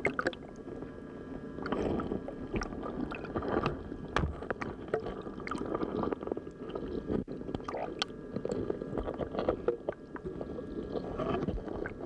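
Underwater water noise as mallards dive and paddle: muffled sloshing and gurgling with many scattered clicks and pops, over a faint steady whine.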